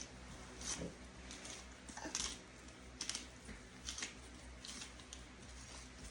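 Faint, short crisp shakes, one or two a second: a spice shaker, pepper among the spices, being shaken over a pot.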